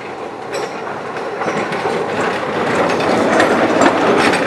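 Historic electric tram passing close by, its wheels clattering over the rails, with sharp clicks from the rail joints. It grows steadily louder as it comes alongside, loudest near the end.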